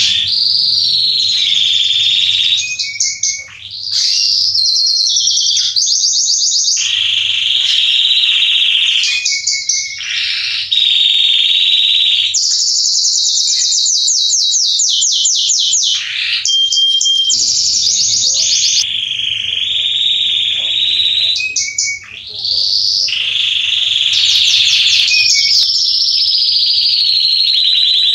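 Male Belgian canary of the Salsa type singing a loud, continuous song, fast trills alternating with smoother rolling phrases. It breaks off briefly twice.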